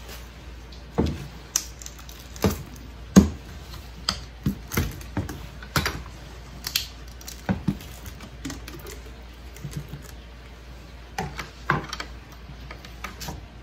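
Irregular sharp clicks and knocks from handling: the plastic lid of an emulsion bucket being worked open and a scoop coater being moved on the table, the loudest knock about three seconds in.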